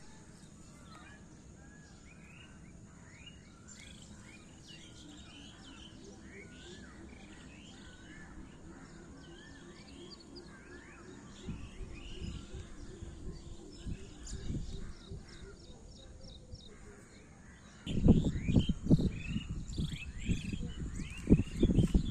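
Many birds chirping and calling. About eighteen seconds in, loud low rumbling comes in gusts: wind buffeting the microphone.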